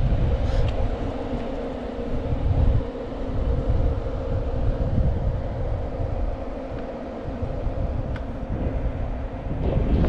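Wind buffeting the camera microphone: a heavy, uneven low rumble that swells and dips.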